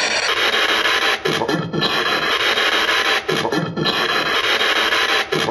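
P-SB7 spirit box sweeping through radio stations: a loud, continuous rasping hiss of static, broken now and then by brief dips and short fragments of sound.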